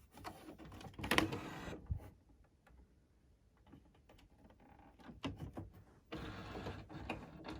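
HP ENVY all-in-one printer being handled and running: plastic clicks and knocks from its lid and trays, with stretches of motorised mechanism noise about a second in and again near the end.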